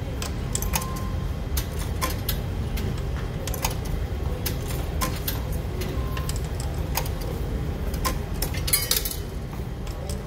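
Coins being fed one at a time into the coin slot of a nol card recharge machine, with coins clinking in the palm: a string of sharp metallic clicks and clinks about once a second, over a steady low hum.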